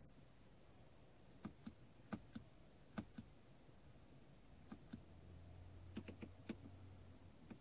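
Faint, irregular clicks, in small groups of two or three, from the Mazda CX-5's MZD Connect infotainment controls being operated as the settings menus are stepped through. A faint low hum comes in for a few seconds in the second half.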